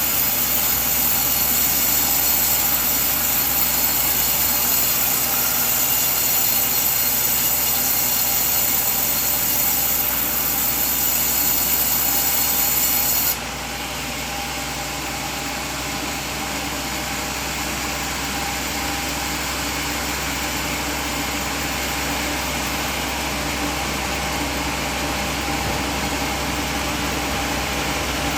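Band sawmill blade sawing through a coconut log with a steady, bright hissing sound over the machine's hum. About thirteen seconds in the high hiss cuts off abruptly and the saw keeps running, quieter and duller.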